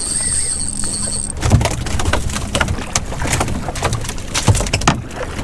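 Irregular splashing and water spatter starting about a second and a half in, as a hooked bonito is pulled up to the side of the boat, over a steady rumble of wind on the microphone.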